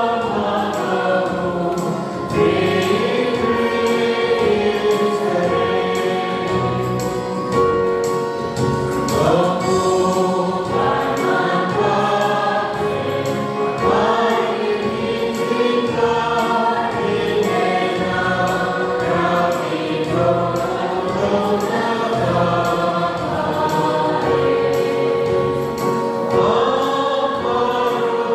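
A choir singing a Christian hymn, many voices together holding long notes that change every few seconds.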